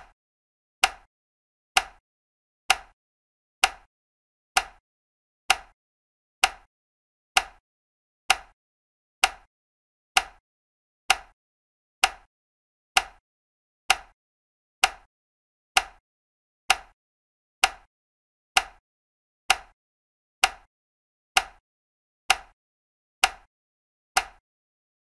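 A table lamp's switch clicking, about once a second and very regularly, as the lamp is turned on and off again and again. Each click is sharp and short.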